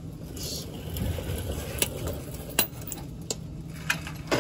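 A ratchet and 19 mm socket working on the rear differential's fill bolt. Sharp metal clinks come a handful of times, a few clustered in the last half.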